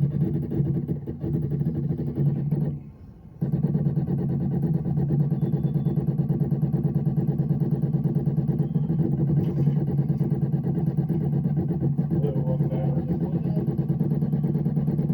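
Miracle A9 key machine's motors running with a steady hum and a fast buzzing pulse as its decoder probe works along the original key, bumping against it to read the cuts. The hum stops for about half a second roughly three seconds in, then resumes.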